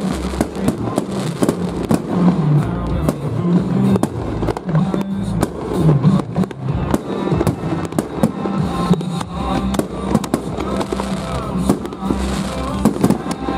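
Aerial fireworks bursting in rapid succession: a continuous string of bangs and crackles from exploding shells.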